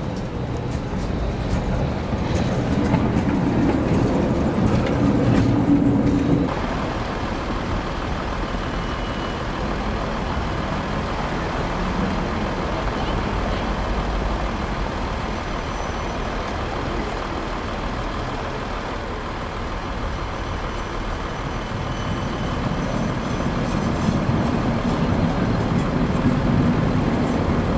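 Trams running through a busy street stop with steady traffic noise. A tram goes by close in the first seconds with a low motor hum, and the sound changes suddenly about six seconds in. Near the end another tram comes close and its hum builds again.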